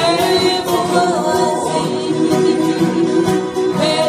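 Live acoustic band: several acoustic guitars strumming a slow old-pop ballad while voices sing in harmony at the microphones.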